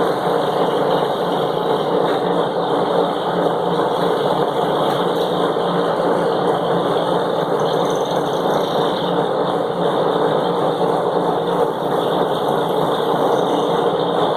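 Bench grinder running steadily while the ends of new disc brake pads are ground to a chamfer, a fix meant to stop the pads squealing.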